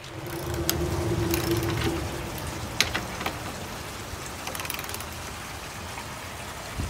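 Wrench working a fastener at the top of a wooden post, giving scattered sharp metallic clicks. Under them is a steady low rumble with a faint hum that stops about two seconds in.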